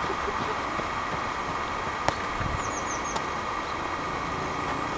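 Steady outdoor background noise, with a quick run of four short, high, falling chirps about halfway through and two faint clicks.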